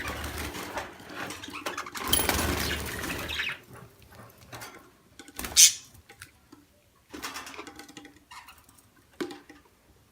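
Rustling and scraping of hands working at a budgie's nest box, dense for the first few seconds, then scattered small clicks and rustles. A short, sharp, high sound about halfway through is the loudest moment.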